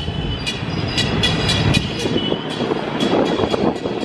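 Busy street noise: a low rumble of vehicle traffic with rapid metallic clattering and a few brief high squeals.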